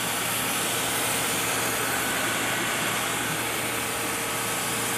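Cooling fan in a gas chromatograph's electronics compartment running with a steady whir of moving air and a faint low hum under it.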